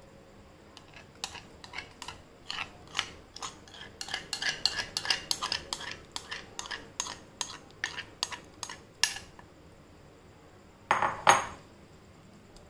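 Steel spoon scraping and tapping semolina batter out of a bowl into a frying pan: a fast, uneven run of clinks for several seconds, then two louder clatters about two seconds before the end.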